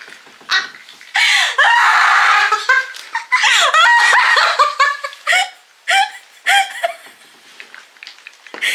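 A woman laughing hard and high-pitched, in a long outburst about a second in and another soon after, then shorter bursts of laughter with breathy gaps between.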